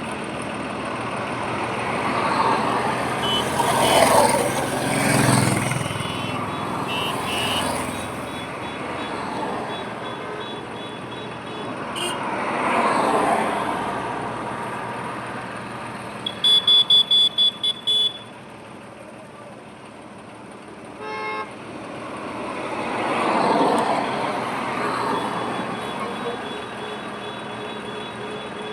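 Highway traffic passing by: vehicles swell and fade one after another, the loudest passes coming about 4, 13 and 24 seconds in. About 16 seconds in, a vehicle horn sounds a rapid string of short toots.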